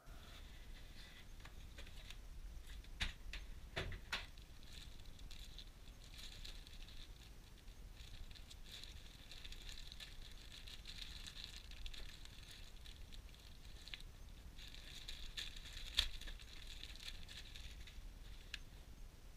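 Rustling and handling of packaging being unpacked, with a few sharp knocks: one about three seconds in, another about a second later, and a louder one near sixteen seconds.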